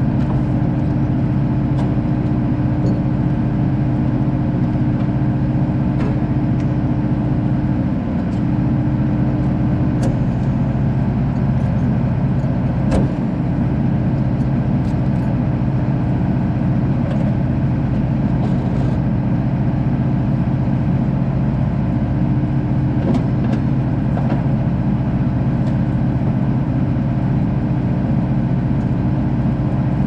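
Large diesel farm engine idling steadily, with a constant low hum, and a few light clicks and knocks over it.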